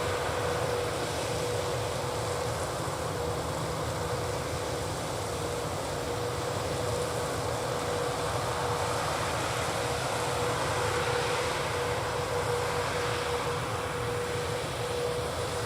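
John Deere 8000R tractors pulling Amadas peanut pickers through the field, running steadily, with a constant whine over a low engine rumble.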